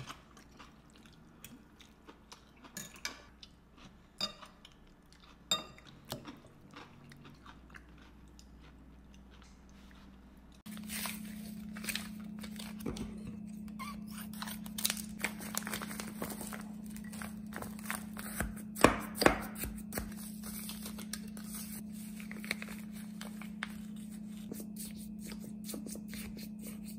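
Quiet chewing and light fork clicks at a meal. About ten seconds in a steady low hum starts, and scissors snip open a plastic jelly pouch, followed by crunching and scraping as a wooden spoon breaks up freezer-frozen konjac jelly in a glass cup.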